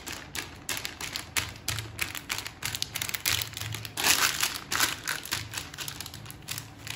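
Oiled plastic bag crinkling and rustling under hands pressing and flattening a ball of dough on it, with quick irregular crackles and a louder burst of rustling about four seconds in.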